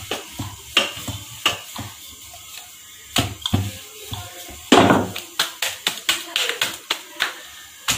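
Rolling pin knocking and clacking against a round rolling board while dough is rolled out: irregular sharp knocks, quicker in the second half, the loudest about five seconds in.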